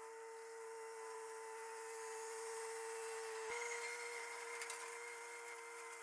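A motor running steadily with a hum, its pitch stepping up slightly a little past halfway.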